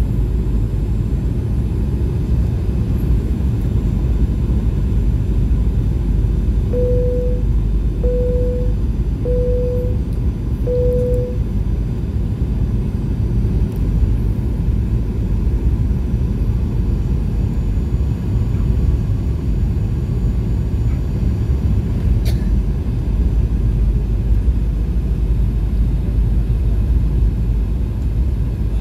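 Cabin noise of a Boeing 737-800 on approach to landing: the steady, low rumble of its CFM56 turbofans and the airflow. About seven seconds in come four short beeps of one pitch, a little over a second apart.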